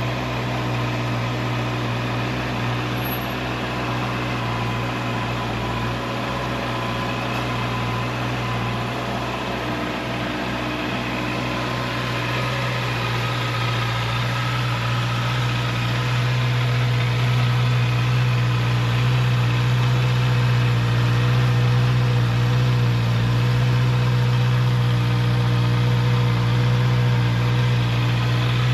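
Honda CB650R's inline-four engine idling steadily through its stock exhaust, growing slightly louder about halfway through.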